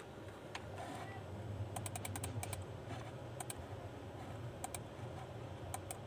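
Quick clicks of computer keys in short runs, a cluster of several about two seconds in and a few more later, over a low steady hum.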